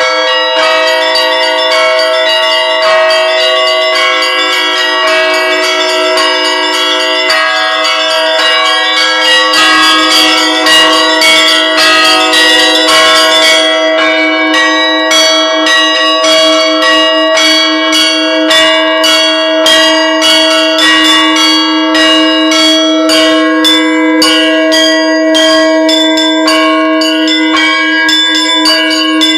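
Bells ringing, struck over and over so that their tones hang on and overlap; about nine seconds in the strikes grow denser and a little louder.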